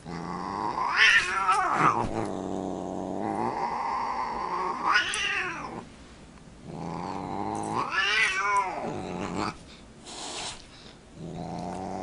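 Domestic cat growling low and drawn-out, rising three times into a high yowling wail that falls back, about a second, five seconds and eight seconds in: the growl-and-yowl of a cat's threat display.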